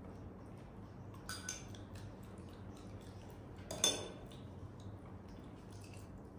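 A few light clinks of eating utensils against a dish, the loudest about four seconds in, over a faint low hum.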